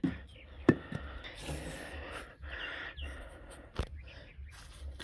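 Wooden blocks and a particle board panel being handled and set in place: a few sharp wood knocks, the loudest about four seconds in, with some scraping and rustling between them.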